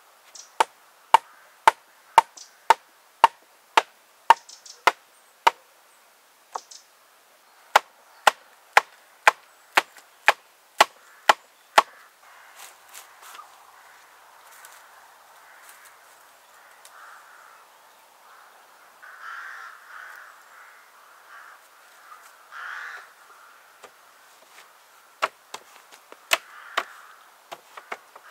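Sharp wooden knocks, about two a second, from rods being beaten down into a woven wattle wall. The knocking stops about twelve seconds in, giving way to softer rustling with a few rougher swells, and starts again near the end.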